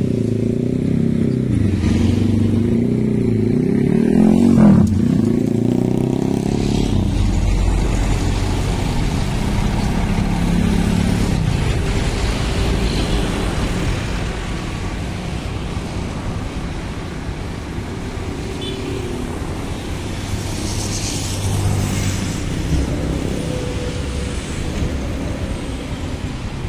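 Scania K360iB coach's diesel engine running at low speed as the bus manoeuvres, loudest in the first several seconds and a little quieter from about fourteen seconds in.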